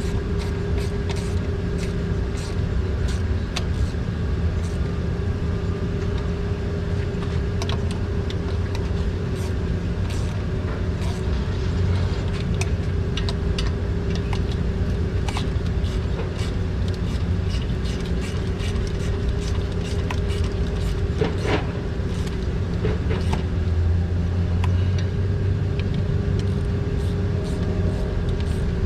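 Light clicks and taps of a hand ratchet and sockets as valve cover bolts are run down and snugged, scattered irregularly over a steady low mechanical hum.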